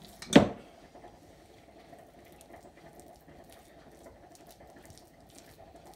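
One sharp knock about a third of a second in, then soft taps and scrapes of a utensil spreading date filling onto shortcrust pastry, over a faint steady hum.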